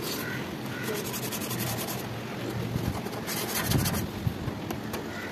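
Hand rubbing and scraping on the pipework of an air conditioner's outdoor unit, strongest in a quick run of strokes a little after three seconds, over a steady background rumble.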